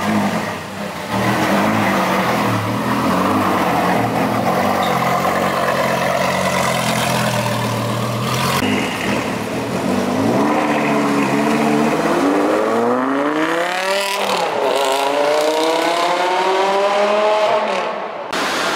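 Lamborghini Gallardo's V10 engine running loud at low revs, then accelerating hard: the note climbs, drops once at a gear change, climbs again, and fades near the end as the car pulls away.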